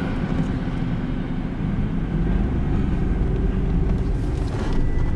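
Low, steady rumble inside a Mercedes car's cabin as it pulls away slowly from a stop.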